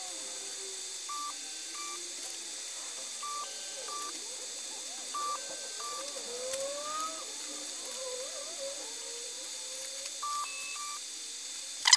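Elegoo Neptune 2 3D printer beeping: short, high beeps, mostly in pairs, as its touchscreen is pressed during bed levelling, with the stepper motors whining in shifting pitches as the nozzle and bed move between levelling points. A sharp knock comes right at the end.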